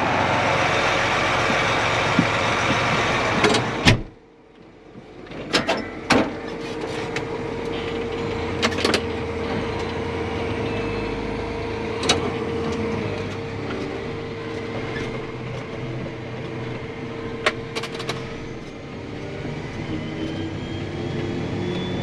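John Deere 8235R tractor engine running steadily, heard from inside the cab while driving, with a few sharp clicks and knocks. The sound dips briefly about four seconds in.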